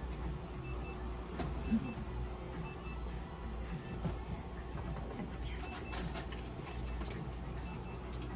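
Faint short electronic beeps, in pairs about once a second, from the light-therapy unit running over the cat, over a steady low machine hum, with a few soft clicks.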